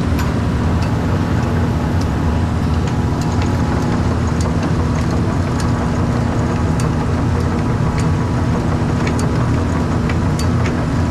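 Haylage unloader and conveyor running steadily, feeding haylage into a feed mixer: a constant low machine hum with scattered light ticks.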